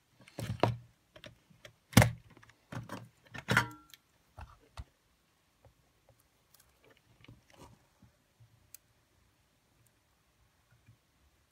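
Clicks and knocks from the opened cassette player's metal-and-plastic chassis and board as it is handled and worked on. There is a cluster of sharp knocks in the first few seconds, the loudest about two seconds in, then fainter scattered ticks.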